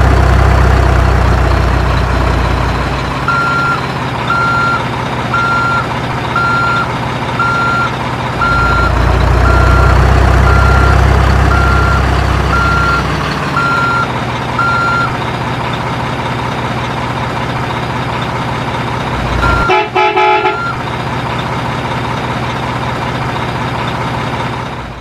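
Heavy truck engine rumbling steadily, louder at the start and again for a few seconds in the middle. A reversing beeper sounds about once a second for roughly twelve beeps, and a short horn blast comes about twenty seconds in.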